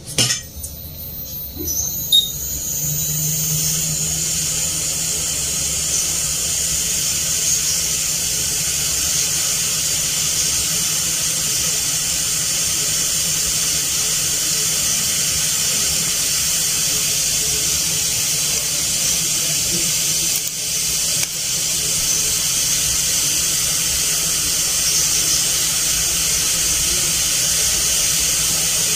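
Hot-air rework station blowing a steady hiss of hot air over a newly placed charging IC on an iPhone logic board to reflow its solder. The air comes on about two seconds in, after a few light clicks.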